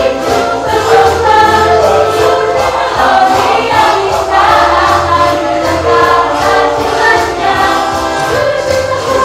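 A mixed choir of men and women singing together, voices moving through a melody continuously.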